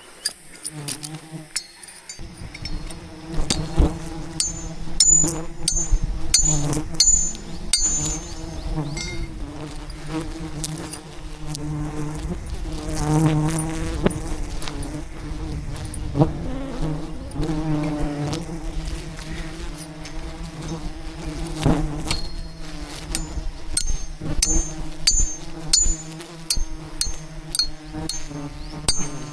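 A swarm of wild honey bees buzzing loudly around their hive, a dense hum that wavers in pitch, with scattered sharp knocks and clicks.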